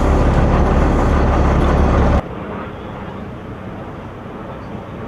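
Steady, loud vehicle rumble with street noise that cuts off abruptly about two seconds in, leaving quieter outdoor background noise.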